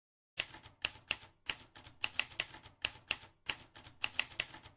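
A rapid, irregular run of sharp typing-like keystroke clicks, about four to five a second, starting about half a second in.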